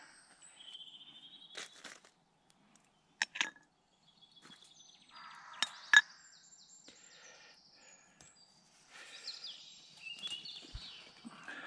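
Woodland birds singing and chirping, with a few sharp metallic clinks of metal tongs setting charcoal on a stainless steel billycan lid; the loudest clink comes about six seconds in.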